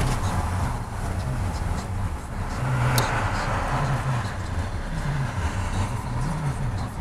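Vehicle engine idling steadily, with a short click about three seconds in.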